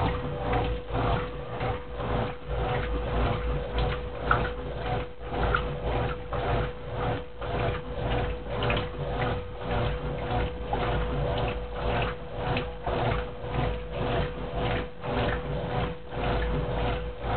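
Brastemp Clean 10 kg washing machine agitating a duvet load: a steady back-and-forth swishing that pulses a little more than once a second, over a constant motor hum.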